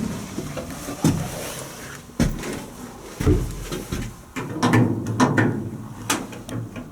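Scattered clicks and knocks, about half a dozen, from the cab controls of an unpowered E8 diesel locomotive being worked by hand, including the horn control. No horn sounds, because the locomotive has no power.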